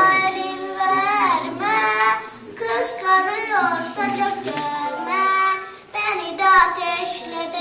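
Young children singing a Turkish folk song (türkü) in high voices, with long held notes that bend in pitch.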